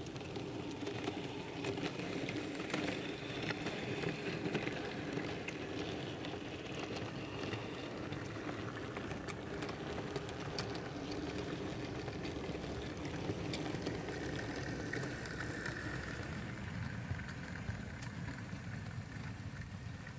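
Model railway train running past: a steady motor hum with the wheels clicking over rail joints and pointwork. The hum drops away about sixteen seconds in, leaving a quieter running sound.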